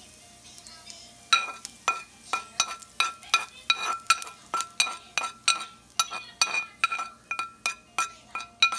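A metal spoon scraping and tapping a frying pan, about three taps a second starting about a second in. Each tap rings with the same clear note.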